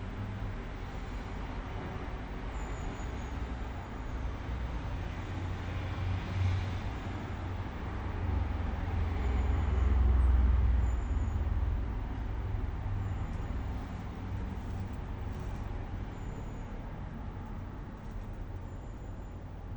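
Road traffic rumble, with one vehicle passing that swells up and fades away about halfway through.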